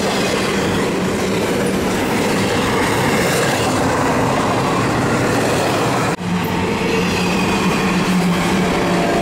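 Double-stack container cars of a CSX intermodal freight train rolling by: a loud, steady rumble and rattle of steel wheels on the rails, with a brief break about six seconds in.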